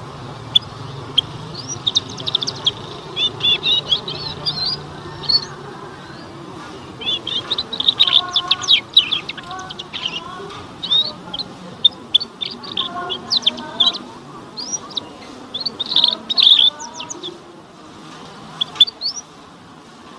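Young canary twittering in repeated short phrases of quick, high chirps and trills, with brief pauses between phrases.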